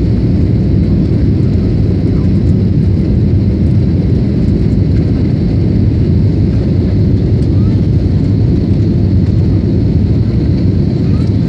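Steady cabin roar of an Airbus A321neo in its climb just after takeoff, heard inside the cabin over the wing: a deep, even rumble of engines and rushing air.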